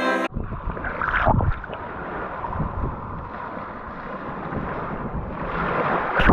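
Wind buffeting the microphone: a steady rushing noise with a deep rumble and a stronger gust about a second in.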